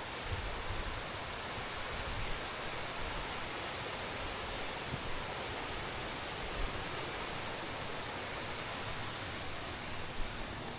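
Steady rushing roar of a waterfall and its river, with uneven low rumbles of wind on the microphone.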